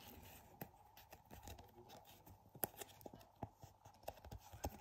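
Faint plastic handling: a trading card in a soft sleeve being slid into a rigid clear plastic toploader, with soft rustling and scattered small clicks. The sharpest click comes a little past halfway, and another comes near the end.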